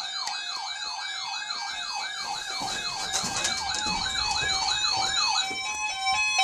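Electronic siren in a fast yelp: a falling sweep repeated about four times a second. Near the end it gives way to a steady tone and a run of stepped electronic beeps.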